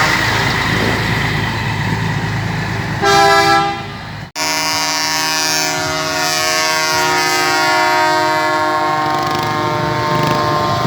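Truck air horns blowing over engine rumble. There is a short blast about three seconds in, and then, after a cut, a long steady multi-tone horn chord held for about six seconds.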